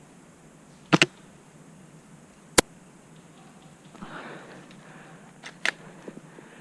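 Sharp, very short clicks or cracks: a close pair about a second in, a single louder one a moment later, and another pair near the end, with soft rustling between them.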